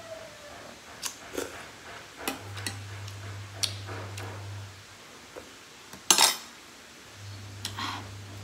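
Metal spoon and fork clinking against a ceramic bowl while eating noodles: a handful of separate clinks, the loudest about six seconds in.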